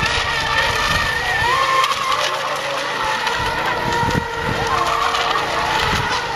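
Several electric RC racing boats running flat out, their motors whining at overlapping pitches that glide up and down as the boats throttle through the turns around the buoys.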